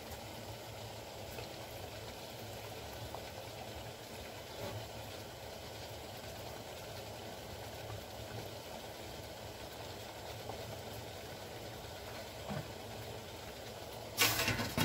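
Water boiling steadily in a stainless steel steamer pot on the stove. Near the end, a short metal clatter as the steamer lid is set on.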